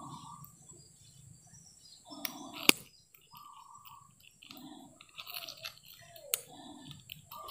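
Close handling noise as pliers work a lure's hook out of a snakehead's mouth held in a metal lip grip, with a few sharp metallic clicks, the loudest nearly three seconds in.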